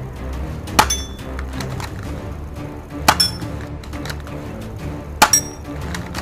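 Spring airsoft pistol (MP900) fired three times, about two seconds apart, each shot a sharp snap followed at once by a short ringing metallic clink. Background music plays throughout.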